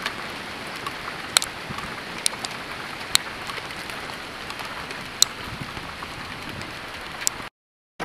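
Heavy rain and hail pelting down in a storm: a steady hiss with sharp clicks of hailstones striking now and then. It cuts off suddenly near the end.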